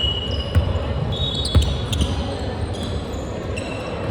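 A basketball bouncing on a hard court floor, a few low thumps about a second apart, with short high squeaks in between.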